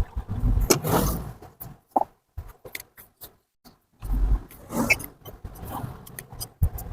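Irregular clunks, clicks and knocks of hands-on mechanical work on a motorcycle engine, with a couple of short low rumbles.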